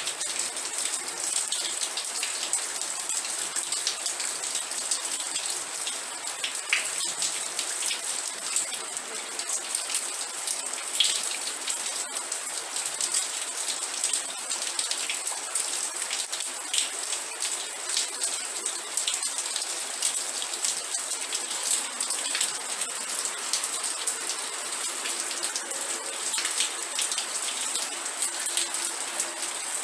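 Steady rain with many individual drops ticking on a hard surface, an even hiss with no thunder.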